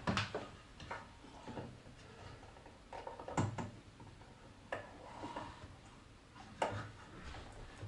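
Scattered light clicks and knocks of small objects being handled on a desk, irregular, a few stronger taps among them.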